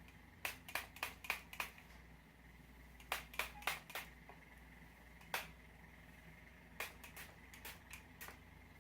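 Not Your Mother's She's a Tease hairspray sprayed in short, quick spritzes, about sixteen in all: runs of four to six close together, with a single spritz about halfway.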